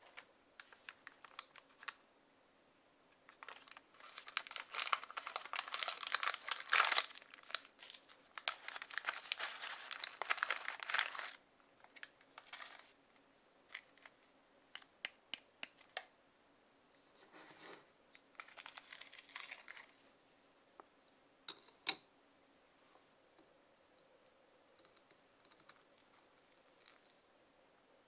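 Plastic packet of freeze-dried miso soup crinkled and torn open by hand, a dense stretch of crinkling starting about four seconds in and lasting some seven seconds. Then scattered light taps and crinkles as the freeze-dried block is handled in its thin plastic tray, with one sharp click a little after twenty seconds in.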